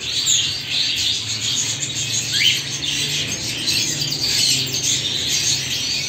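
Birds chirping and chattering continuously, many quick high chirps overlapping, with one louder rising whistle about halfway through.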